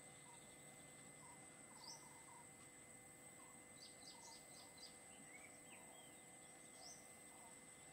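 Faint wild ambience: a steady high insect whine, with scattered short bird chirps and a quick run of high bird notes about four seconds in.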